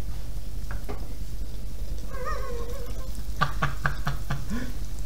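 Battered food on skewers sizzling in the hot oil of an electric home deep fryer, over a steady low hum. A brief wavering squeal comes about two seconds in, then a quick run of short sounds a little after three seconds.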